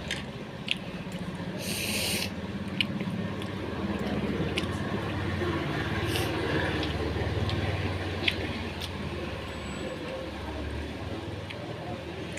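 Eating sounds from someone chewing grilled meatballs: scattered sharp mouth clicks and smacks, with a short hiss about two seconds in, over a steady low hum.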